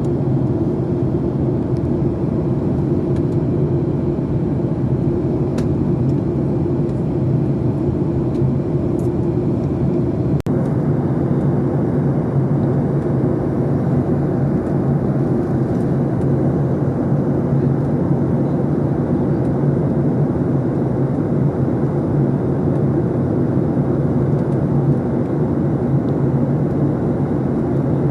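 Airplane engine running with a steady, unchanging drone, a low hum with a second tone above it and a rushing noise over the top.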